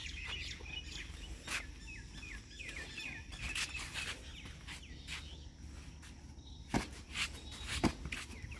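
Small birds chirping repeatedly over steady outdoor background noise, with two short thuds near the end, about a second apart.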